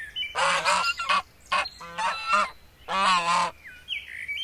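Goose honking: about six honks in quick succession, then fainter higher calls near the end.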